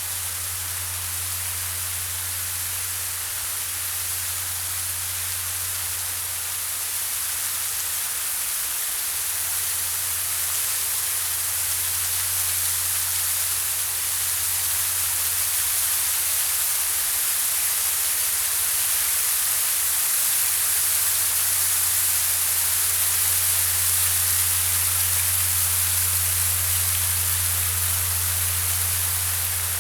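Steady static-like hiss with a low hum underneath, unchanging and without any distinct events, slowly growing a little louder.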